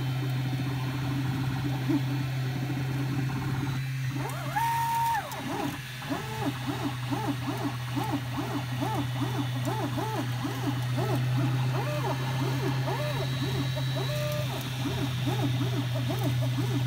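3D printer printing: its stepper motors whine, the pitch rising and falling about twice a second as the print head sweeps back and forth laying infill, over a steady low hum. About five seconds in, one higher tone is held briefly.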